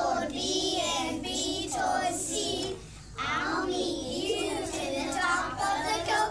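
A group of young children singing together, in two phrases with a short break about three seconds in.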